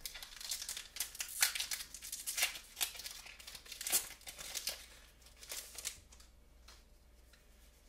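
Foil Pokémon booster pack wrapper being torn open and crinkled in the hands: a run of sharp crackles and rips that stops about six seconds in.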